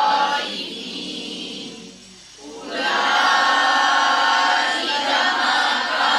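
A class of students reciting a Quranic verse aloud in unison, in a slow chanted recitation, with a brief pause about two seconds in before the voices resume.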